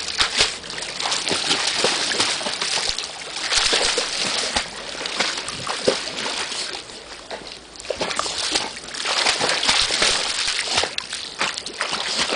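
Dog paddling and slapping the water of an above-ground pool with its front paws: repeated splashing and sloshing in surges, easing off briefly about two-thirds of the way through.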